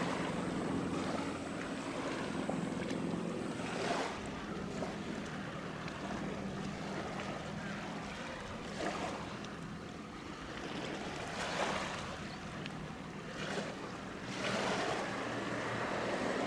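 Wind buffeting the microphone in several gusts, with waves washing and a steady low hum from the passing general cargo ship's engine.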